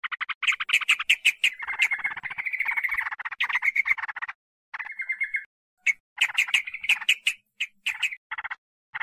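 Yellow-vented bulbul (trucukan) chattering calls: fast runs of harsh notes, with short pauses about halfway through and several brief bursts near the end. It is a lure call meant to draw wild trucukan.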